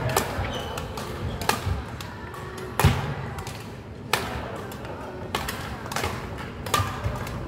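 Badminton rackets striking shuttlecocks in an echoing gym hall: sharp cracks about one every 1.3 seconds, the loudest near the middle with a low thud, as a student jumps side to side to smash fed shuttles.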